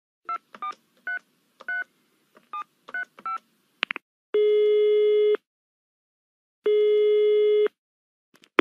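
A telephone number being dialled on a touch-tone phone: about nine quick key beeps, a click, then the ringing tone heard by the caller sounds twice, each about a second long.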